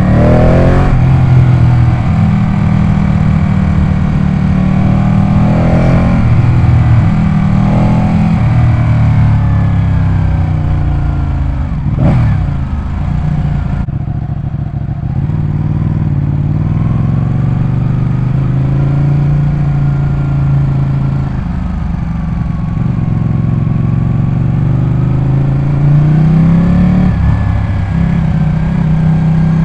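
Ducati 899 Panigale's L-twin engine running, its revs rising and falling again and again, with a sharp rev spike about twelve seconds in.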